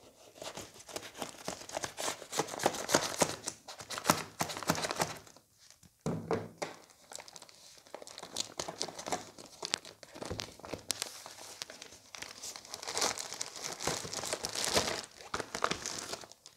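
Plastic courier mailer crinkling and tearing as it is pulled open by hand, in dense crackly bursts with a brief lull about five and a half seconds in. Near the end the clear plastic bag inside crinkles as it is drawn out.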